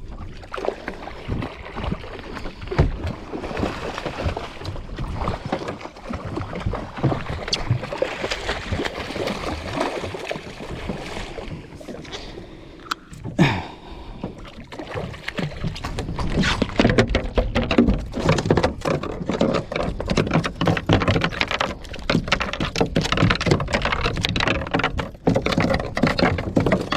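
Water splashing and slapping irregularly around a small fishing boat at sea, busier and louder in the second half.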